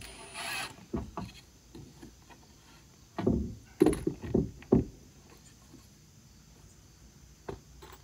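Wood knocking on a wooden deck as boards and tools are handled: a short scrape at the start, two light knocks about a second in, then a cluster of four or five sharp knocks around the middle, and one more knock near the end.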